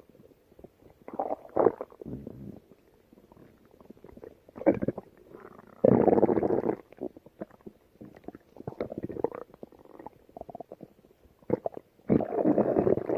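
Stomach growling: a run of irregular growls of uneven length. The longest and loudest come about six seconds in and near the end.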